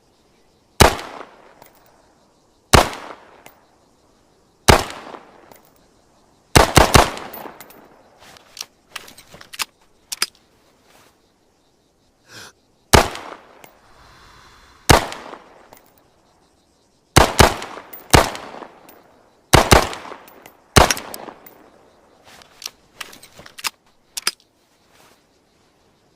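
Makarov PM pistol (9×18mm) firing: single shots about two seconds apart at first, then quicker doubles and strings of shots, each with a short ringing tail. Fainter sharp pops and clicks fall between the louder shots.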